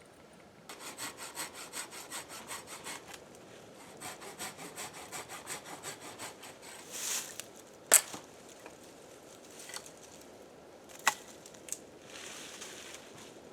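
A saw cutting through wood in two bouts of quick strokes, about five a second, followed by a sharp crack about eight seconds in and a smaller one a few seconds later.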